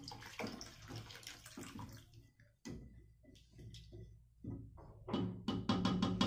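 Water pouring into a stainless steel pot of mung bean soup while a wooden spoon stirs it, with sloshing and irregular scraping clicks. Near the end comes a denser run of sharp knocks.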